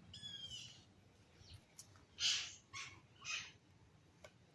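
Birds calling: a quick falling chirp at the start, then three short, high calls around the middle.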